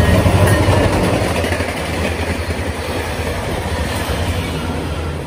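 Ontario Northland diesel-hauled passenger train passing at speed. The locomotive's engine rumble is loudest in the first second, then gives way to the steady rush and rail noise of the coaches rolling by.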